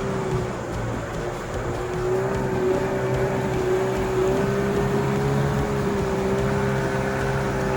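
An engine running steadily at a constant speed, with a steady whine that wavers slightly in pitch and dips briefly about a second and a half in.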